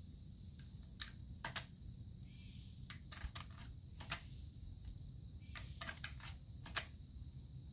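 Faint, irregular light metallic clicks of brass rifle cartridges being handled, about a dozen, ready for loading into a lever-action rifle.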